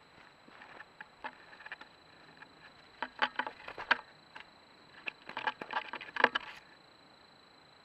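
An animal's footsteps crunching and rustling in dry leaf litter close to a trail camera. They come in two short bursts of crackling steps and stop abruptly, over the camera's faint steady electronic whine.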